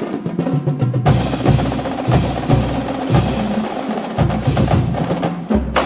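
Music led by drums and percussion, with a steady beat of about two low hits a second that comes back in strongly about a second in.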